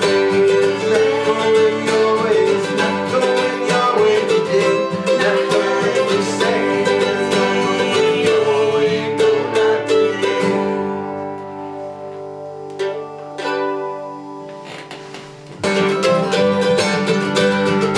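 Country-jazz song played on guitar and other plucked strings. About ten seconds in the playing thins out to a few held notes, and the full band comes back in about five seconds later.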